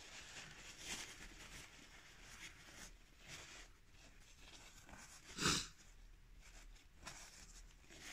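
Quiet room tone with faint soft rustles and one short bump about five and a half seconds in.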